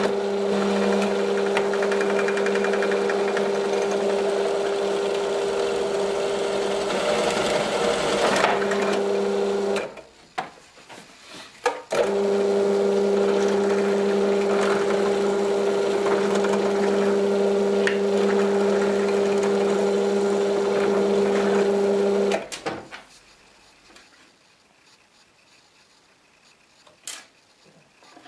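Bench drill press motor running with a steady hum while drilling holes through the sanding block's clamp and into a plastic tube. It is switched off about ten seconds in, started again about two seconds later, and switched off again about 22 seconds in; a few light clicks of handled parts follow.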